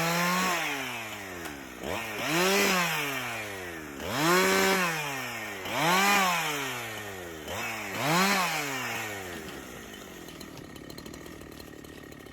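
A small motor revved up and let back down about five times, each rise and fall lasting a second or two, then dropping to a quieter, steadier running near the end.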